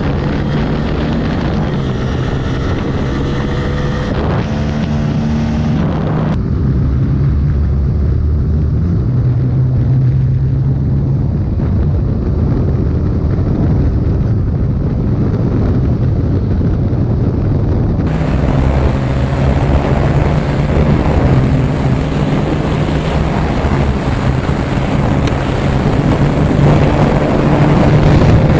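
Onboard sound of single-cylinder 150–160 cc motorcycles held at full throttle on a top-speed run, the engine note high and climbing slowly, with wind rushing over the microphone. The engine tone changes abruptly about six and about eighteen seconds in, as the sound switches from one bike to another.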